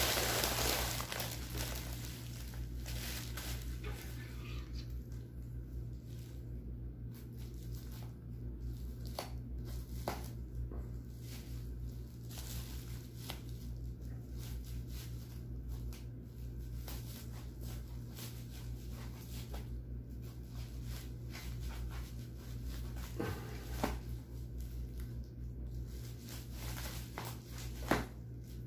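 Plastic wrapping rustling and crinkling as a parcel is unwrapped by hand, with scattered small clicks and handling knocks, over a steady low hum. The rustling is loudest in the first second or so, and there are sharper clicks near the end.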